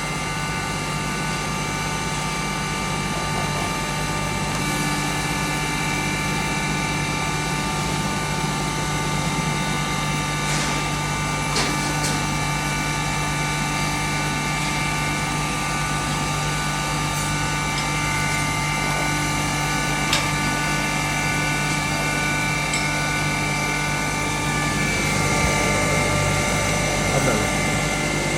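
2 HP turmeric grinding machine running steadily while grinding turmeric: a constant motor hum and whine with a regular low pulsing, and a few sharp clicks partway through.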